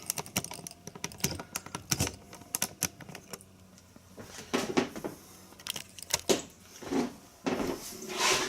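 Irregular light clicks and clatters of small metal hand tools being picked up and set down, with a few short rustles of handling.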